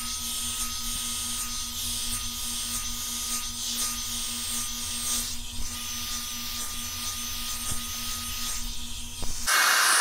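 Revlon One-Step hot-air brush dryer running: a steady rush of fan air with a faint high motor whine as the brush is drawn through the hair. Near the end it briefly gets louder.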